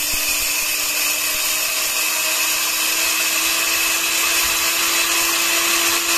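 LEJIEYIN high-speed electric grain grinder running loudly while grinding wheat into flour, a steady motor whine over the noise of grain in the steel chamber, its pitch creeping up slightly.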